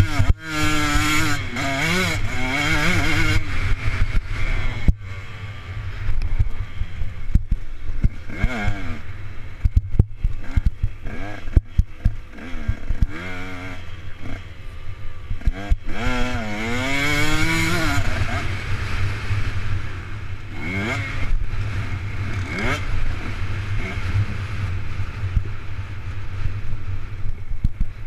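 Dirt bike engine revving up and falling back over and over as it is ridden hard round a motocross track, with heavy wind rumble on the helmet camera's microphone.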